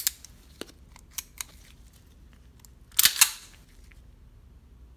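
Star Model BM 9mm pistol being dry function-tested: a sharp metallic click near the start and a few light clicks of the trigger and hammer, then about three seconds in the slide is cycled with a loud double clack, leaving the hammer cocked.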